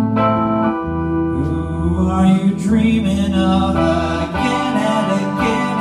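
Keyboard music with an organ-like sound: held chords that change every second or two.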